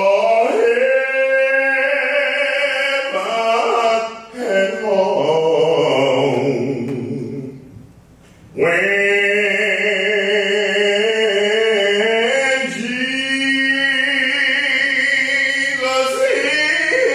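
A man singing slow, long-held notes into a microphone, phrase after phrase, with a short break about eight seconds in.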